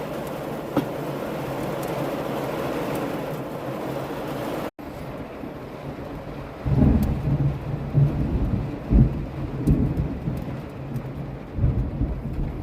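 Steady heavy rain, then, after a brief cut-out, thunder rumbling in several deep rolls over the rain.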